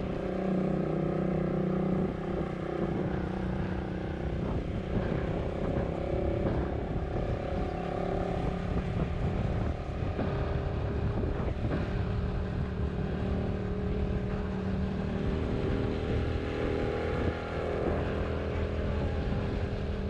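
Motorcycle engine running at a steady cruise while riding, over a constant low rumble of road and wind noise.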